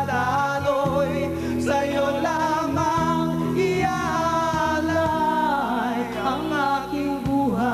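Live band playing a ballad while a singer holds long, wavering notes that slide in pitch over it.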